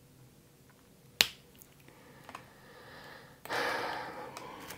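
One sharp click about a second in, then the rustle of cosmetics packaging being handled, which grows louder from about three and a half seconds in.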